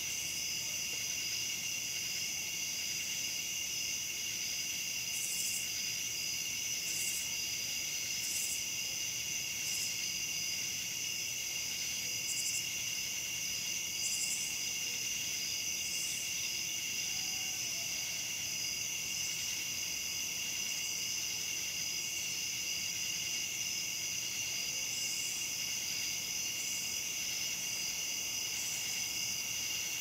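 Night chorus of crickets trilling steadily and without a break, with short, high calls of katydids ("cha chas") every second or two, dropping out in the middle and returning near the end.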